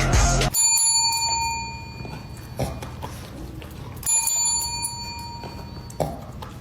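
Background music cuts off, then a small bell rings twice, about three and a half seconds apart, each ring fading slowly.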